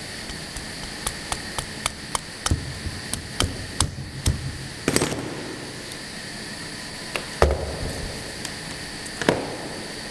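Automatic through-hole component insertion machine working on a PCB: quick sharp clicks, about three a second, for the first few seconds, then three louder knocks a couple of seconds apart, over a steady machine hum.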